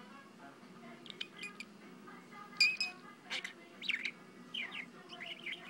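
English budgie chattering: a loose string of short chirps and squeaky notes gliding up and down, the loudest chirp about two and a half seconds in.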